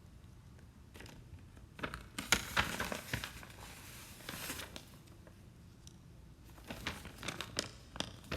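Plastic blind-bag wrapper crinkling in irregular bursts as it is handled and opened, loudest about two to three seconds in and again near the end.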